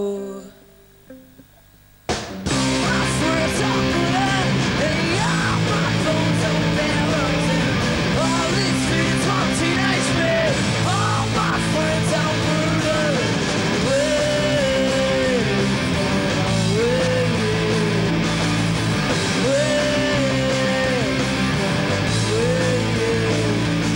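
Punk rock band playing live with electric guitars, bass and drums: after a near-quiet break of about two seconds, the full band comes back in together and plays on loud and steady.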